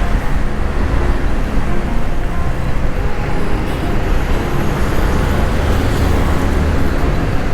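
Benelli Panarea 125 scooter's single-cylinder engine running steadily under throttle while riding, mixed with road and wind noise. The throttle is held open because the engine stalls when it is closed, after a wash left it throwing a check-engine light.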